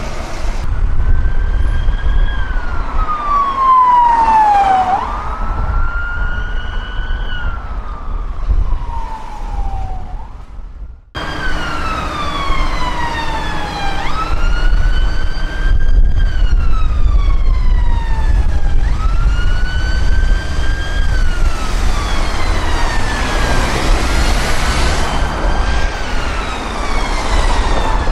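Emergency vehicle sirens over traffic rumble, wailing in slow sweeps that rise and fall over a couple of seconds each. After a sudden cut about eleven seconds in, an NHS ambulance's siren wails on as it comes through traffic.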